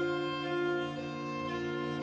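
Background music of long, held string chords, violin and cello, with the harmony shifting about a second in.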